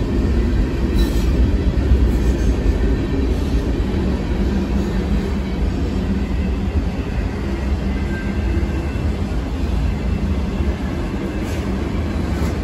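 Railroad cars rolling by on the track: a steady, loud low rumble.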